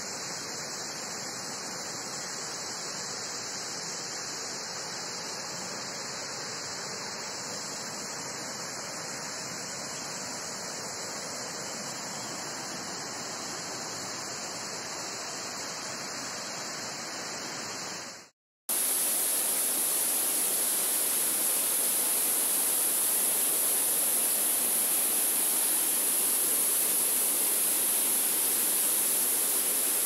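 Waterfall water pouring and splashing over rocks, a steady rushing noise. About 18 seconds in it cuts out for a moment and comes back louder, with a strong high hiss on top.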